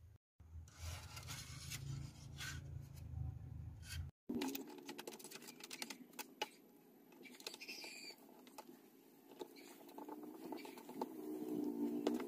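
Hands handling plastic TV cabinet parts and a screwdriver working on a small circuit board: scattered light clicks, taps and scrapes.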